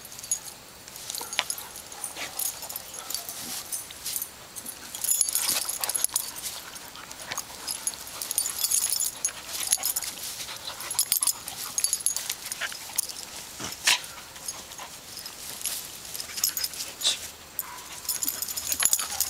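Two dogs play-wrestling: mouthing and snuffling at each other's faces, with many short clicks and clinks and an occasional faint whimper.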